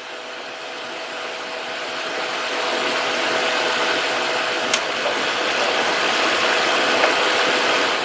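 Steady hiss that builds over the first few seconds and then holds: liquid flux sizzling under a soldering iron as it heats a feedthrough solder lug.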